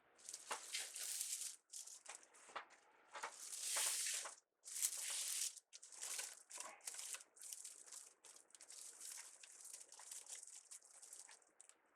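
Wreath ribbon crinkling and rustling in irregular bursts as it is handled, twisted and tucked into the wreath.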